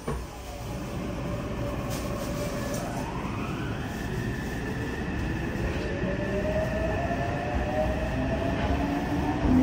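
Yokohama subway 3000R-series train's Mitsubishi IGBT-VVVF inverter and traction motors heard from inside the car as it pulls away: a thump at the very start, then whines that climb in pitch as the train accelerates, one rising quickly and levelling off, others rising slowly, over a growing rumble of running gear.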